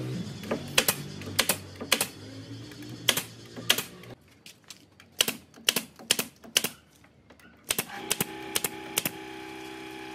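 Pneumatic brad nailer firing nails into a pine door frame: about sixteen sharp shots at an uneven pace, sometimes in quick pairs. A steady hum comes in near the end.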